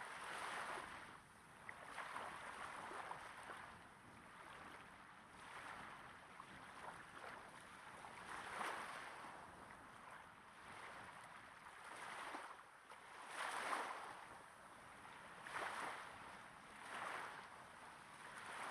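Small waves gently breaking and lapping on a sandy beach, close to the microphone: a soft wash that swells and fades every second or two.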